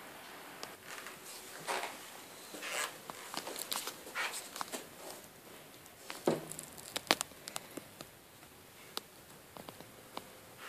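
Footsteps on a hard floor and rustling handling noise on a handheld phone's microphone, with scattered sharp clicks and knocks, the loudest about seven seconds in.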